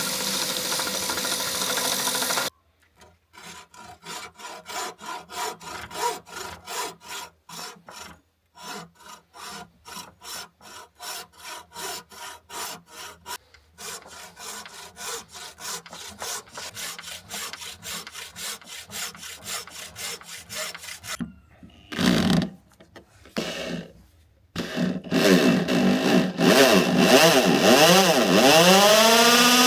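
A hand tool stroked back and forth on a knife part, about two strokes a second with a few short pauses, after a couple of seconds of a steady machine noise. Near the end a power tool starts, its pitch rising and falling.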